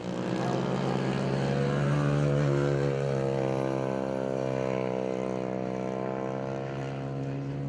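Small-displacement racing engine running at high revs, a steady droning note that swells slightly in the first few seconds and then holds.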